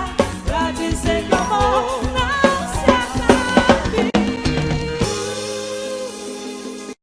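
Forró band playing live: drum kit and bass under a wavering lead melody, settling about five seconds in on a held chord that cuts off abruptly near the end.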